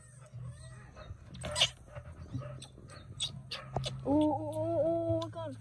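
A baby monkey crying: a long, steady wail starts about four seconds in, after scattered clicks and a short noisy burst.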